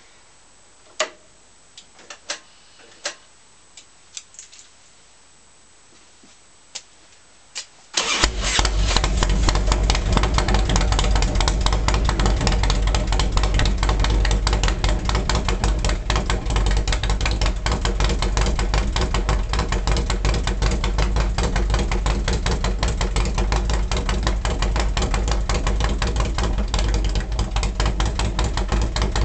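Harley-Davidson 1450 V-twin, fitted with an S&S carburettor and S&S cam and timing-gear kit, starts abruptly about eight seconds in and then runs steadily and loudly through fishtail exhausts. Before it fires there are only a few light clicks.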